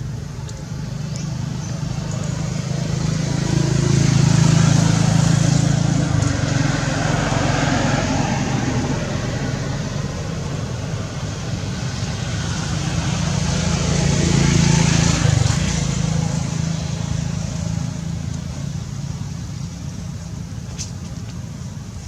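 Road traffic: motor vehicles running past, the engine hum and tyre noise swelling and fading twice, once about four seconds in and again about two-thirds of the way through.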